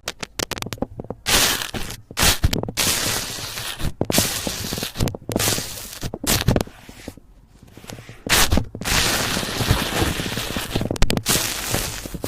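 Slime being squeezed and pressed by hand, giving a run of crackling pops and crunchy squelches in irregular bursts, with a quieter lull about two-thirds of the way through.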